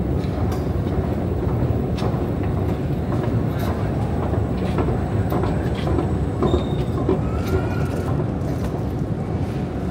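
Subway escalator running: a steady low mechanical rumble with scattered light clicks.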